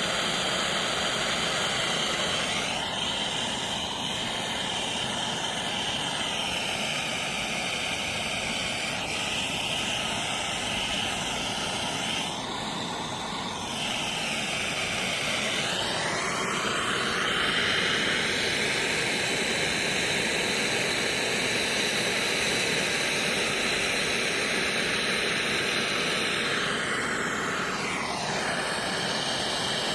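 Plumber's gas torch burning with a steady roaring hiss while heating a drain tailpiece joint for soldering. The tone of the rush shifts slowly as the flame is moved around the work.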